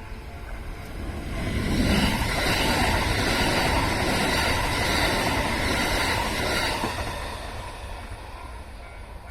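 A Kintetsu electric train passing over a level crossing. The sound builds over the first couple of seconds, stays loud for about five seconds, then fades away near the end.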